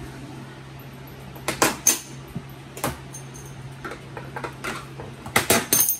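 Metal hand tool prying plastic retaining clips off the plastic outer tub of a washing machine: scattered clicks and clatters, a few about a second and a half in, one near three seconds, and a quick cluster in the last second.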